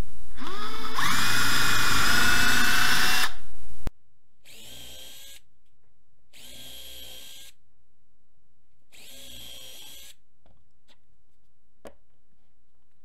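Electric drill spinning up and running while pre-drilling holes in a wooden 4x4 post. After a sudden cut come three shorter, quieter runs of about a second each, the drill driving the screws that fix a toggle clamp to the post, and a single small click near the end.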